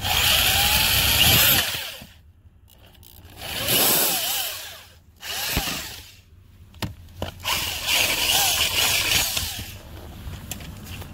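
Power drill with a twist bit boring out stripped screw holes in plastic dash trim, widening them to take hole plugs. It runs in about three main bursts plus a short one, and the motor pitch rises and falls within each run.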